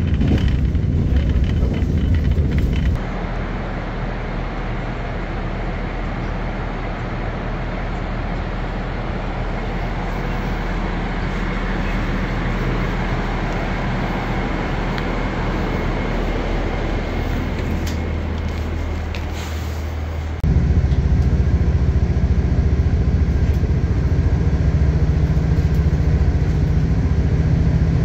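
Diesel railcar running steadily. The sound drops in level about three seconds in, then comes back louder with a strong low hum about twenty seconds in.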